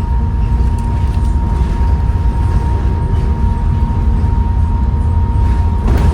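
Bus with a ZF automatic gearbox running, heard from on board: a heavy low engine and drivetrain rumble with a steady high whine held throughout, the 'knackered' ZF gearbox and turbo whine. A brief knock sounds near the end.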